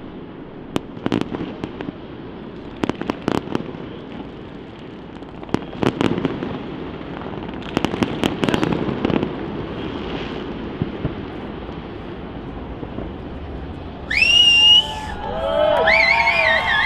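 Fireworks bursting, with bangs and crackles every second or so. Near the end, louder shrill whistles and cheering from people close by rise over them.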